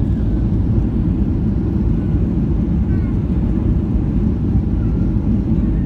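Steady low rumble inside a Boeing 737 cabin as the airliner rolls on the ground after landing: engine and wheel noise carried through the fuselage.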